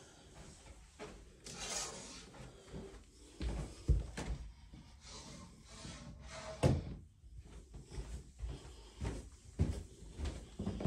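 A few dull, irregular thumps with faint rustling between them, from footsteps on a carpeted staircase and a phone being handled.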